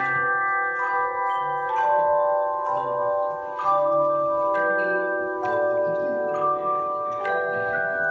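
Handbell choir playing a piece of music, with chords of ringing bell tones struck together about once a second and each left to ring on into the next.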